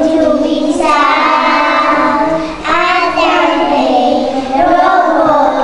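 A group of young children singing a song together, with a short breath between phrases about two and a half seconds in.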